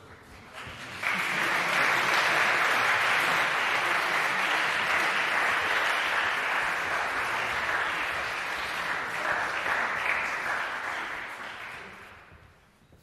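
Audience applauding. The clapping starts suddenly about a second in, holds steady, and dies away near the end.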